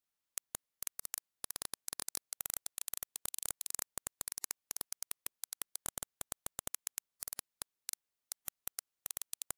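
A run of sharp clicks with silent gaps between them. They come thickest from about one and a half to four seconds in, then more sparsely.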